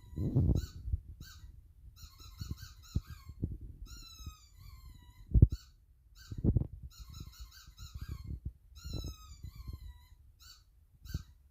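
A squeaky dog toy being squeezed in quick runs of short high squeaks, a few drawn out and falling in pitch, as a terrier chews and plays with it. Soft thumps and knocks from the play come in between; the loudest is a thump about five seconds in.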